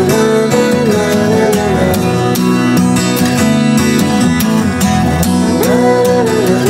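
Background music with strummed guitar and a steady, even beat, and a melody line that slides up and down.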